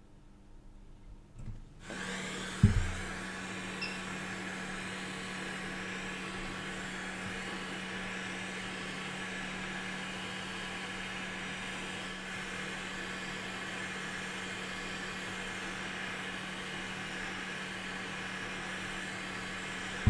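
Hot air rework gun blowing steadily with a low hum, starting about two seconds in, with a sharp knock just after it starts. The hot air is reflowing the solder under a memory chip's pins on a sound card.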